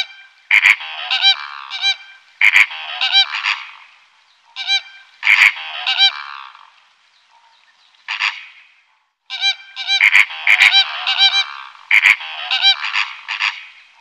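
A flock of flamingos calling, several birds at once, in bursts of repeated calls with short pauses between them.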